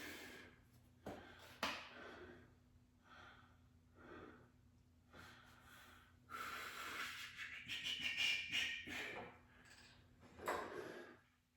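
A man breathing hard and wheezing from the exertion of tricep extensions: a string of heavy breaths, a longer stretch of loud panting from about six to nine seconds in, and one more hard exhale near the end. Two sharp knocks come about a second and a half in.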